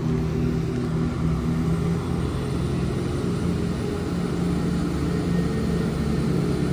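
Diesel engines of a pair of Chiltern Railways Class 168 multiple units running: a steady low drone with several engine tones.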